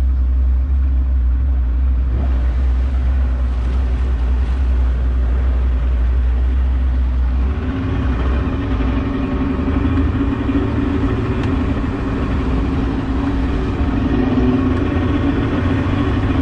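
Outboard motor of an open wooden boat running under way, a steady low rumble; about halfway through its note changes and a pitched engine hum comes up over the rumble.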